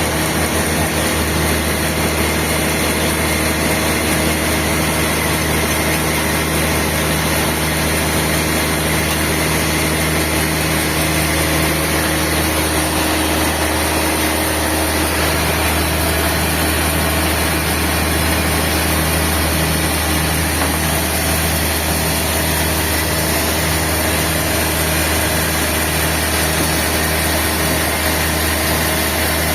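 Sawmill machinery running steadily with a constant engine-like hum.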